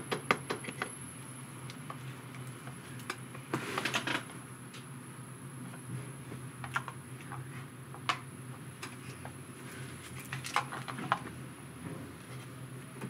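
Scattered light clicks and taps of small parts and electronics being handled on a workbench, with a short rustle about three and a half seconds in, over a steady low hum and a faint steady high whine.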